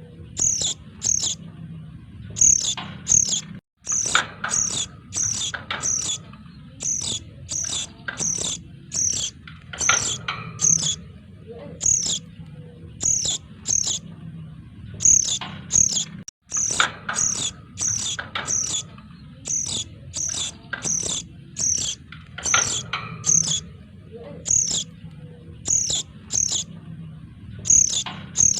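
Crimson sunbird (sogon) chicks calling noisily: rapid, thin, high-pitched chirps, several a second, played as a looped bird-lure recording over a low steady hum, with brief gaps where the loop restarts.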